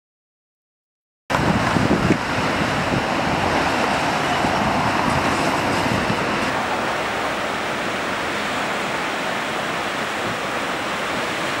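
Steady rushing of falling and flowing water, cutting in suddenly after about a second of silence.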